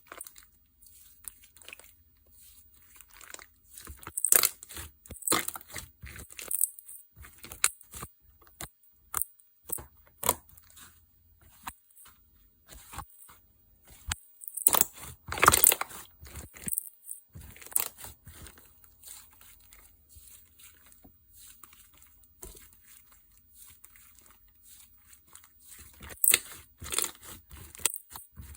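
Homemade slime being pressed, squished and stretched by hand, giving irregular crackling and popping clicks that come in louder bursts a few times.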